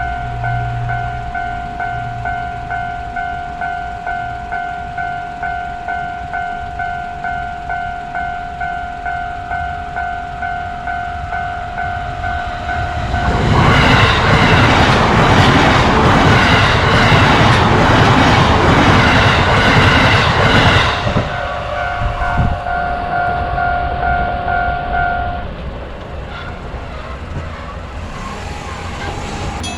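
Railroad crossing warning bell ringing as a steady two-tone pulse, about two strokes a second. About 13 seconds in, a JR Yokohama Line train passes loudly for about seven seconds and drowns out the bell. The bell then rings on for a few seconds and stops.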